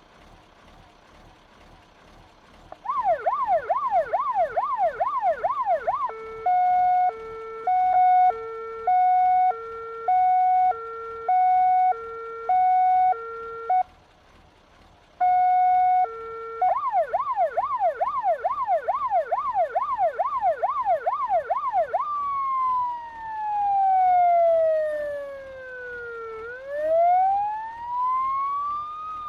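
Fire engine's electronic siren cycling through its tones. After a quiet start it gives a fast yelp of rapid rising and falling sweeps, then a two-note hi-lo alternation, a brief pause and one held note, the fast yelp again, and finally a slow wail that falls and then climbs in pitch.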